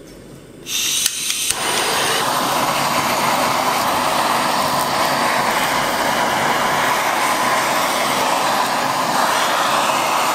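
Handheld kitchen blowtorch lit with a couple of clicks about a second in, then burning with a loud, steady hiss as its flame sears green onions laid over a hot pot.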